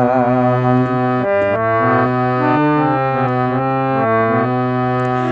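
Hand-played keyboard instrument with an organ-like tone, playing a melodic interlude of held notes that step from pitch to pitch over a sustained low note. A singer's last held note fades out in the first half second.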